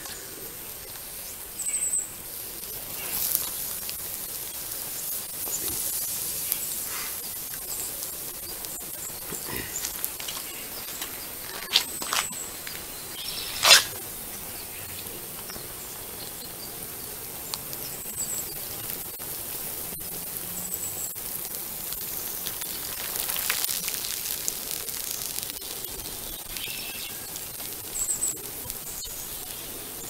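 Foil-faced plastic flexible dryer vent duct burning: a soft, steady crackle and hiss of the flame with a few sharp pops, the loudest about 14 seconds in. The sound is of the duct's plastic itself catching and burning, showing it is flammable and not metal.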